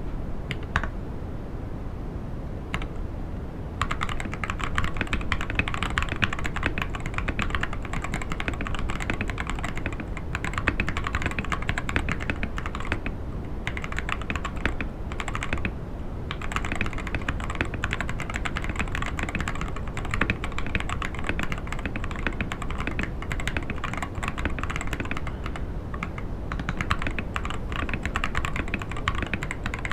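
Typing on a modded Akko ACR67 gasket-mount mechanical keyboard with an acrylic case and FR4 plate. A few single keystrokes come first, then fast continuous typing from about four seconds in, with a couple of brief pauses.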